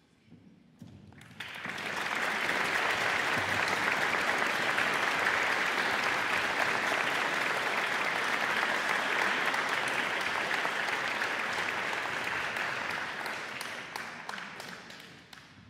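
Audience applauding, building up in the first couple of seconds, holding steady, then thinning to scattered claps and dying away near the end.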